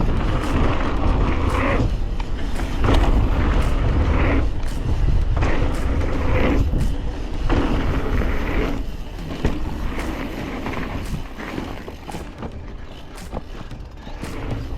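Mountain bike ridden fast over a dirt trail: tyres rolling, wind rushing over the microphone, and the bike giving frequent short knocks and rattles.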